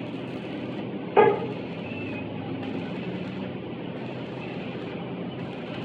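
A single sharp knock on steel parts about a second in, with a short ring, over a steady background rumble.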